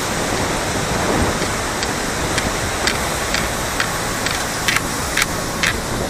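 Steady roar of rushing water from the waterfall and river below. From about two seconds in, footsteps tap on the suspension bridge's deck about twice a second.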